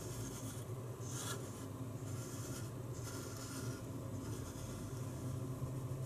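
The plywood dial of a wooden combination lock turned by hand, wood rubbing on wood in several short scraping strokes, over a steady low hum.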